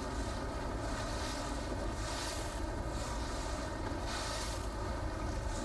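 Wind buffeting the microphone and water rushing past a racing sailboat in choppy sea, the hiss swelling and fading about once a second over a steady low rumble.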